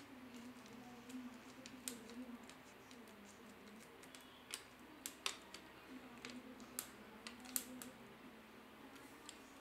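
Faint, irregular clicks and ticks of a screwdriver with a socket bit turning the screw in a Manfrotto tripod's plastic flip-lock leg clamp, over a low steady hum.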